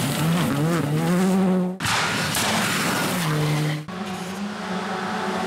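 Rally cars at full speed on loose gravel. A Skoda Fabia R5's turbocharged four-cylinder revs up and down through gearchanges over the hiss of gravel under the tyres. The sound cuts off suddenly twice and switches each time to another rally car's engine running flat out.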